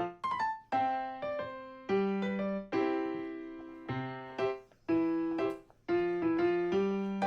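Background music: a light piano or electric-piano tune, with notes and chords struck and left to ring, a new one every half second or so.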